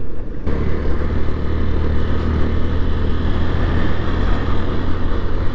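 Motorcycle engine running steadily while under way, a constant low drone that cuts in abruptly about half a second in.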